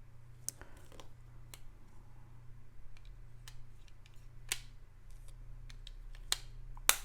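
Scattered light plastic clicks and taps from handling earbuds and a small earbud cleaning pen, with a sharper click near the end, over a steady low electrical hum.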